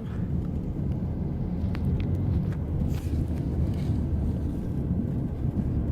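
Car driving, heard from inside the cabin: a steady low rumble of engine and road noise, with a couple of faint ticks about two seconds in.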